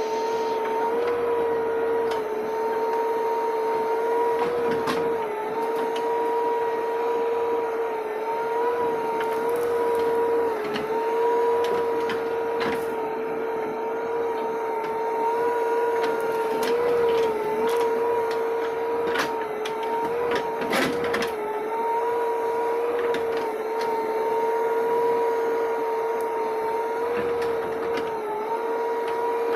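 Backhoe loader running with a steady high whine that dips slightly in pitch now and then, with scattered clicks and knocks.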